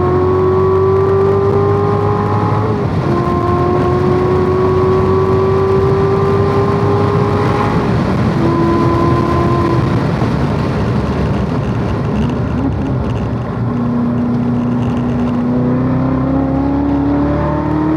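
Corvette Z06's V8 engine pulling hard at speed, its note climbing slowly through long stretches and breaking at gear changes. Around the middle the engine note drops away for a few seconds, leaving mostly road and wind noise, then comes back lower and climbs again.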